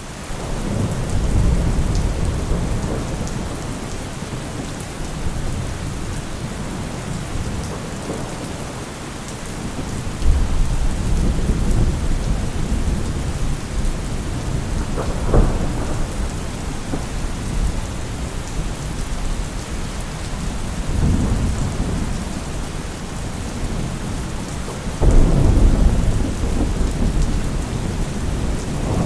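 Thunderstorm: steady heavy rain with several low rolling rumbles of thunder, a sharper crack about halfway through and the loudest rumble near the end.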